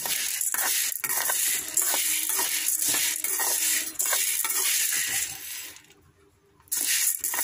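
Sprouted wheat grains being stirred and roasted in a metal pan: a dense rattling hiss with many small clicks as the grains shift. It dies away about six seconds in and starts again near the end.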